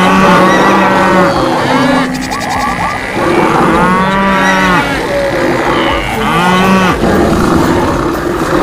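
Cattle mooing: about three long moos, one near the start, one in the middle and one near the end.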